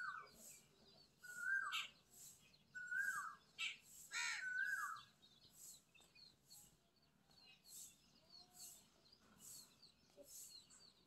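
Repeated short bird calls, each a level note that drops away at its end, about one every second and a half for the first five seconds. After that, fainter bird chirping.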